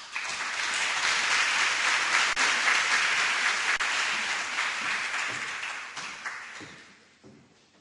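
Audience applauding, starting all at once and fading out over the last couple of seconds.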